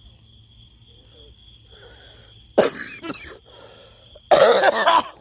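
Woman coughing while smoking a cigarette: one sharp cough about two and a half seconds in, trailing off, then a louder, longer coughing fit near the end.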